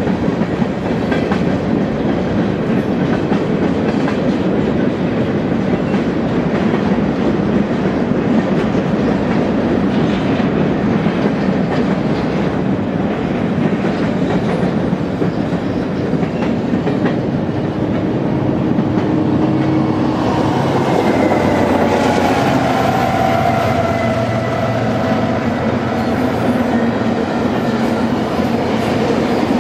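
Freight train cars rolling past at close range: a steady rumble of wheels on rail with clickety-clack from the rail joints. From about 20 seconds in, faint ringing tones join the rumble.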